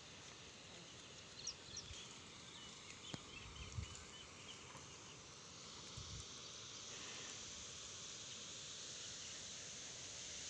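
Faint outdoor countryside ambience: small birds chirping in short high notes, mostly in the first half, over a steady high hiss that grows slightly stronger later, with a few soft low bumps.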